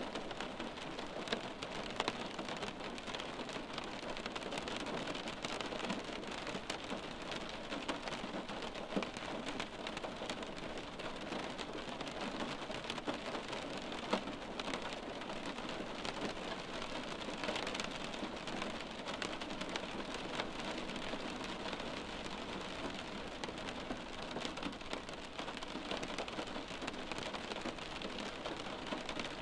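Steady rain falling, with many small drop ticks scattered through it.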